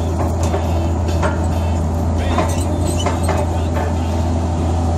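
JCB backhoe loader's diesel engine running steadily under hydraulic load as the backhoe digs, heard from inside the cab, with a steady low hum. Several short knocks and rattles sound over it about once a second.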